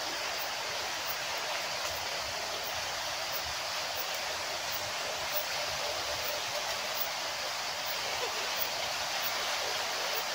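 Steady rushing hiss with no distinct events, of the kind given by running water or wind through forest foliage.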